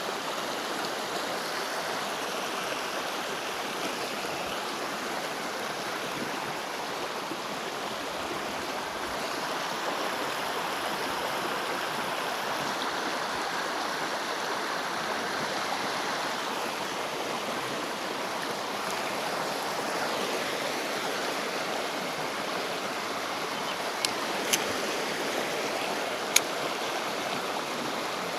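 Shallow stream flowing: a steady rush of running water, with a few sharp clicks near the end.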